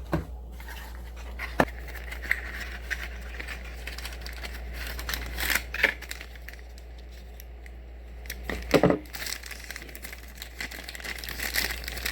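Packaging crinkling and rustling as items are unwrapped and handled, with scattered clicks and knocks. The loudest burst of handling comes a little under nine seconds in, over a steady low hum.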